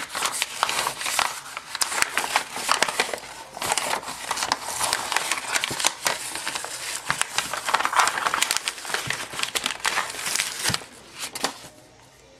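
Sublimation paper being peeled off a heat-pressed glass cutting board, crinkling and crackling steadily, dying away near the end.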